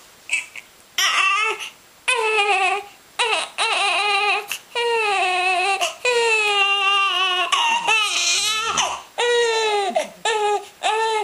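One-day-old newborn baby crying: a run of loud, high-pitched wails, the longest in the middle, one of them sliding down in pitch about eight seconds in.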